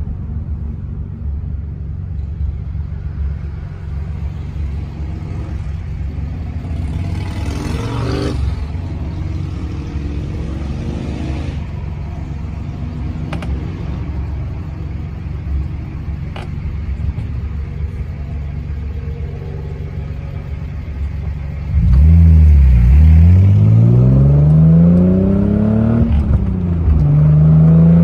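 1990 Nissan 300ZX's V6 idling steadily, heard from inside the cabin, while another vehicle swells past about eight seconds in. About 22 seconds in the engine gets much louder as the car pulls away with rising revs, drops back for a gear change about four seconds later, then climbs again.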